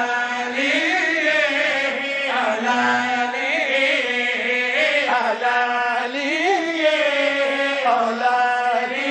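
Several men's voices chanting a qasida together into microphones, holding long drawn-out notes that bend slowly up and down.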